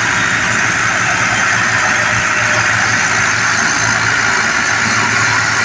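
Diesel engines of two Ford tractors in tandem running hard under heavy load, hauling a loaded sugarcane trolley; a loud, steady engine noise with no let-up.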